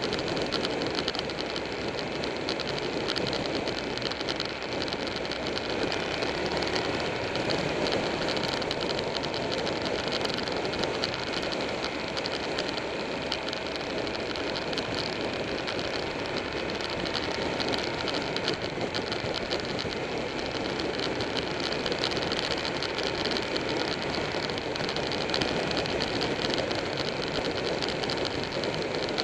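Buell 1125R's V-twin engine running steadily at road speed, with wind rushing over the onboard microphone.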